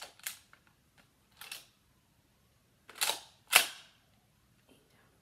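Nerf blaster handled and fired: a few short plastic clicks and clacks, then two louder ones about three seconds in, the last a sharp pop that is the loudest sound.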